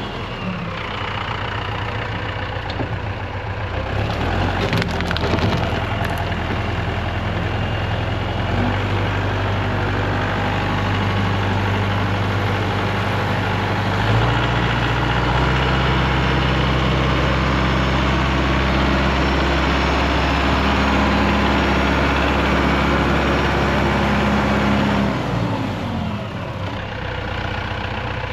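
Tractor engine working under load pulling out a tree stump. It runs steadily, then revs up about halfway through, holds there, and drops back near the end.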